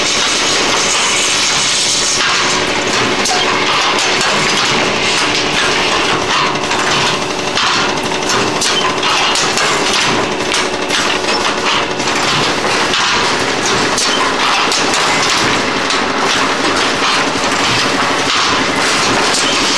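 Automatic thermocouple paper tube assembling machine running: a loud, steady mechanical din full of rapid, irregular knocks and clatter over a steady hum.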